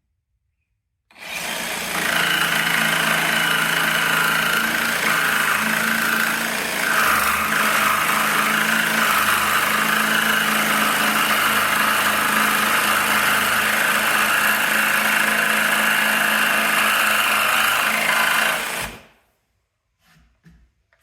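Jigsaw cutting through a 1x4 pine board: the motor starts about a second in, runs steadily under load for about seventeen seconds, its pitch dipping briefly about seven seconds in, and stops shortly before the end.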